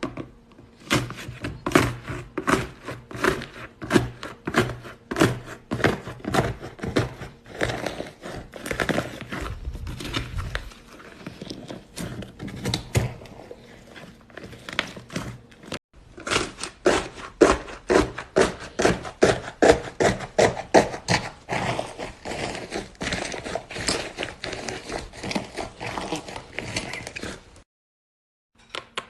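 Crunchy slime being pressed and squished, crackling and popping in quick, irregular clicks several times a second, with a short break about halfway through.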